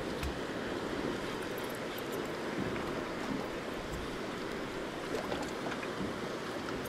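Steady wash of sea water, even and unbroken, with a few faint light ticks.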